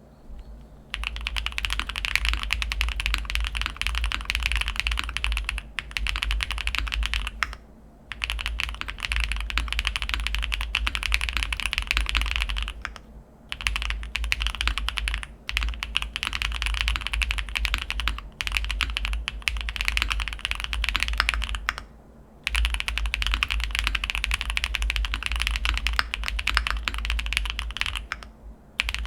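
Fast typing on an Owlab Vento80 custom mechanical keyboard with stock Kailh BCP switches, a POM plate, full foam and GMK Hazakura keycaps. It comes in runs of dense keystrokes, broken by a few brief pauses.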